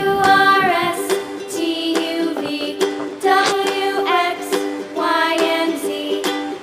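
Background music: an ukulele tune with a melody line over it.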